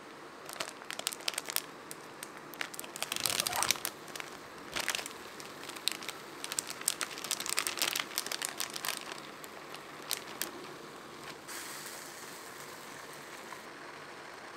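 Plastic food packaging crinkling and crackling in a dense run of sharp crackles as a vacuum-sealed pack of fresh noodles and a soup sachet are handled and opened. The crackles stop after about nine seconds, leaving a soft steady hiss.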